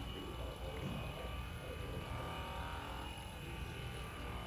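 Steady low hum of room tone with no distinct event.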